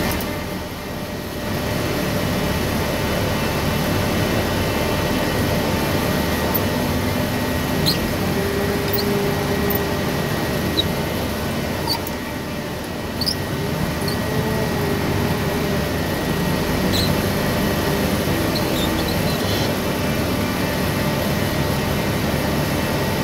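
A large forklift's diesel engine running steadily under load, heard from inside its cab, with a humming tone that comes and goes. Short high squeaks sound now and then as the machine works.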